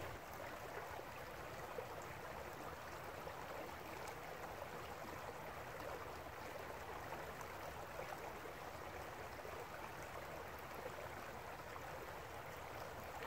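Small woodland stream running, a faint steady rush of flowing water.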